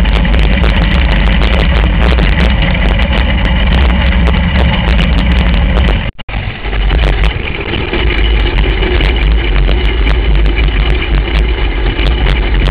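Dirt-track racing kart's engine running steadily, loud and close to the onboard camera's microphone. The sound breaks off for a fraction of a second about six seconds in, then carries on.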